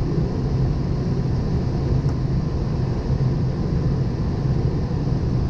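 Steady rumble of airflow and engine noise on the flight deck of a Boeing 777, heaviest in the low end, with a constant hum underneath.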